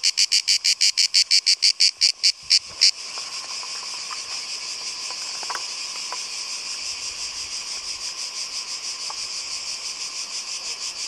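Cicadas singing: a shrill song of rapid pulses, about eight a second, that stops about three seconds in, leaving a steady high buzz of cicadas.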